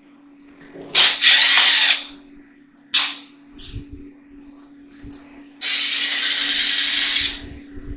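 Power drill fitted with a security star bit, spinning out a vacuum cleaner's housing screws in short runs: a burst of about a second near the start, two brief ones around three seconds in, and a longer run of about a second and a half near the end. A steady low hum sits underneath.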